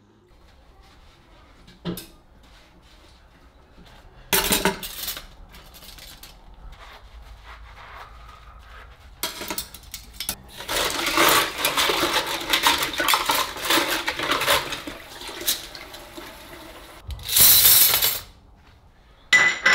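Dishes and cutlery being washed by hand in a kitchen sink: scattered clinks and knocks of crockery and utensils, with the tap running in spells, most densely in the middle and in one loud burst near the end.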